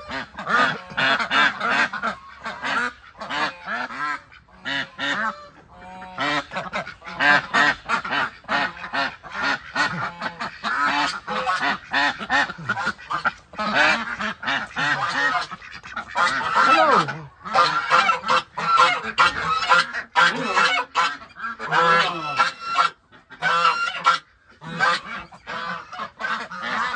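A flock of domestic ducks quacking almost without pause, many loud, overlapping calls.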